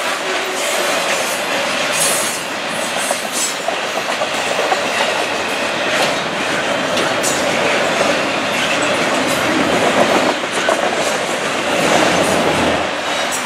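Double-stack intermodal well cars of a CN freight train rolling steadily past, their steel wheels clicking over the rail joints.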